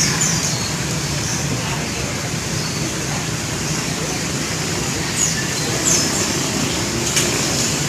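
A pet canary giving a few brief, high chirps, about four in all, with the last three coming close together later on, over a steady low background rumble.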